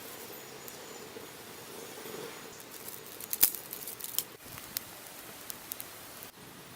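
A few scattered sharp clicks and taps, the loudest about three and a half seconds in, over a steady low hiss.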